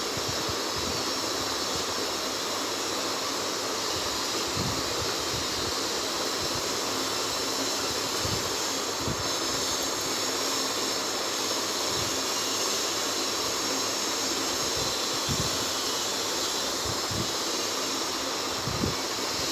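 A steady rushing hiss, with scattered soft low thumps of hands pressing and creasing a sheet of paper against a hard floor.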